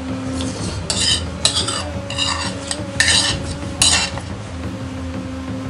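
Metal cutlery scraping and clinking against a plate, about five short scrapes spread over a few seconds as the last of the food is scooped up.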